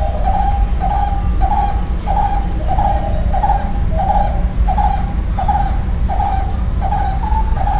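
A barbet calling: one short low note repeated steadily about twice a second.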